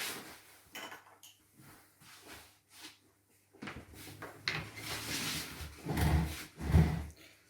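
Plastic toy pieces of a transforming robot toy being handled and set back upright: scattered light clicks and taps, then louder rubbing and clacking from about halfway through.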